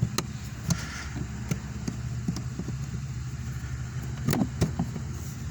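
Scattered sharp plastic clicks and knocks as a trim clip on the footwell panel under the dashboard is worked loose, the loudest a pair about four seconds in, over a steady low hum.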